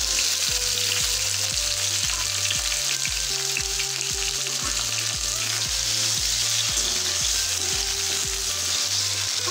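Chopped tomatoes sizzling steadily in hot oil in a stainless steel kadai, with a ladle stirring them near the end. Background music with a steady beat plays underneath.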